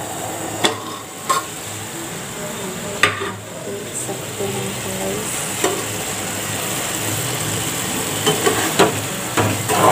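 Sevaiyan (vermicelli) simmering in water in a pan on a gas burner, a steady bubbling sizzle, with a few sharp knocks scattered through it, more of them near the end.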